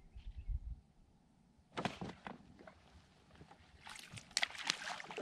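Water splashing and slapping with knocks around a bass boat as an angler fights a hooked fish. It comes in irregular bursts, starting about two seconds in and strongest near the end.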